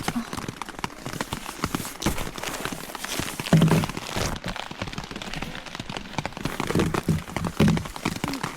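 Rain pattering as many small scattered drops, with a few louder low bumps about three and a half seconds in and again near the end.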